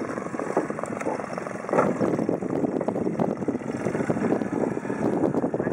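Honda 9.9 hp four-stroke outboard motor running on a small aluminium fishing boat, a steady rough drone.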